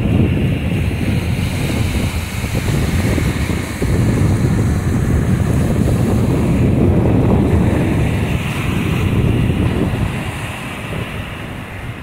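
Rough surf breaking and washing over broken concrete slabs at the water's edge, under heavy wind buffeting the microphone. The wind rumble eases somewhat near the end.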